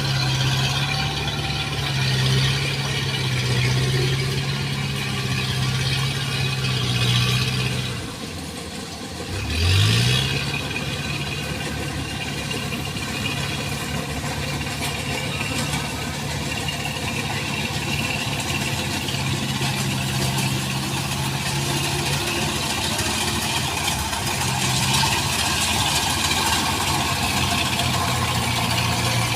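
Farm tractor engine running steadily under load; the engine note dips about eight seconds in, then revs back up before settling into steady running again.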